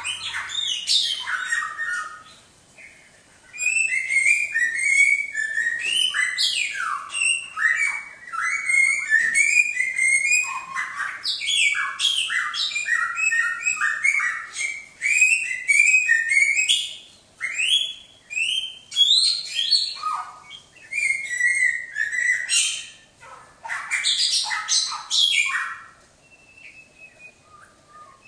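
A songbird singing a long, varied song of rapid, sharp whistled and chirping notes, broken by a few short pauses.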